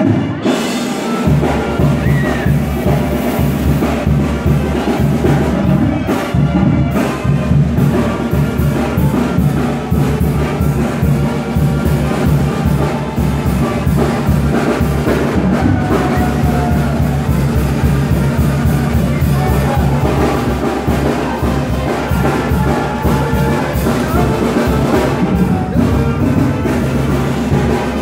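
Loud dance music with brass and a steady, driving drum beat, played over a party sound system.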